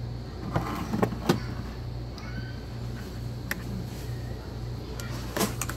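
Metal spoon stirring a ceramic mug of coffee, clinking sharply against the mug's side several times, over a steady low hum.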